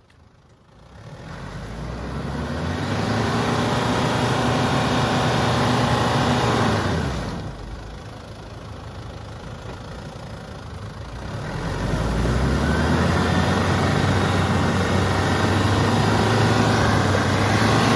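Toyota Land Cruiser Prado 120's 3.0-litre 1KZ-TE turbo-diesel engine revving hard twice, easing back to a lower pitch in between, as the SUV strains to drive out of deep mud.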